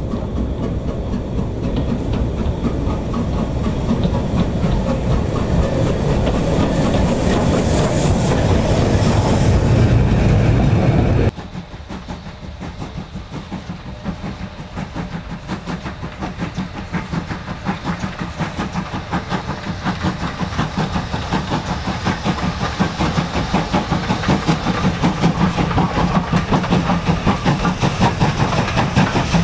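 Steam-hauled train running on the line: loud, dense rail noise that cuts off abruptly about eleven seconds in. It gives way to a steam locomotive's regular exhaust beats, which grow steadily louder as it approaches.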